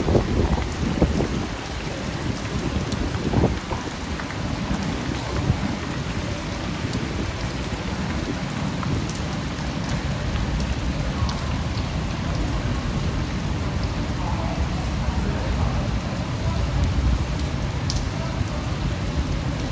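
Steady rain falling on a street, with scattered sharper drop ticks over an even hiss and a low rumble underneath that is strongest in the first few seconds.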